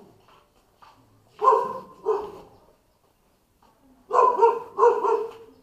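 A dog barking: four short barks in two pairs, the first pair about a second and a half in, the second about four seconds in.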